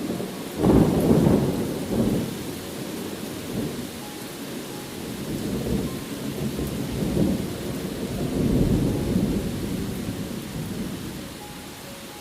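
Thunder rolling over steady rain: a sudden loud crack-and-rumble about half a second in, then rumbling that swells several more times and dies away near the end, with the hiss of rain throughout.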